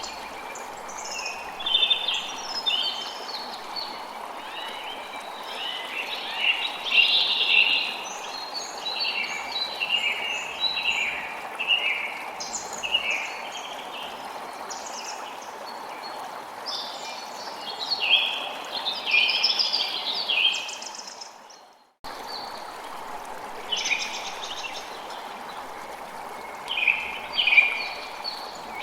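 Forest ambience: many small songbirds chirping and singing over a steady stream-like rush of water. About three-quarters of the way through, the whole sound fades out to silence for a moment and then cuts straight back in, as at the join of a looped recording.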